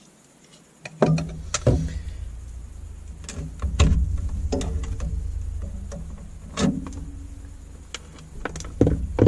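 Sharp knocks and clatter of small LED spotlight housings being handled and set down on a wooden table, about eight in all, over a steady low rumble that starts about a second in.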